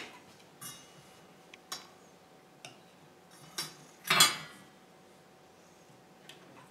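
Small stainless-steel toy pots, a pan and a utensil clinking and knocking now and then as they are handled, with about half a dozen separate clatters, the loudest about four seconds in.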